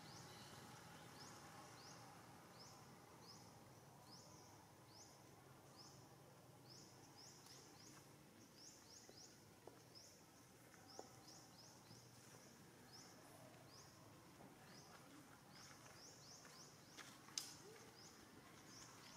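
Faint outdoor ambience with a high, short chirp repeated about twice a second, and a few small sharp clicks, the loudest near the end.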